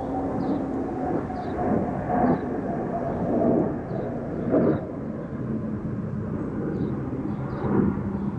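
Outdoor background noise: a steady low mechanical drone, swelling a few times, with faint short high chirps repeating about once a second.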